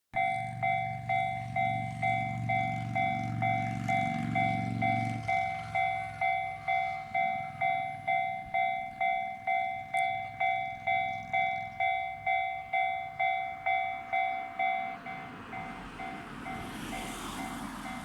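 Railway level-crossing warning signal sounding the slightly high-pitched JR-standard electronic tone, repeating a little under twice a second. A low rumble sits under it for the first five seconds and fades, and a broad rush of noise swells near the end.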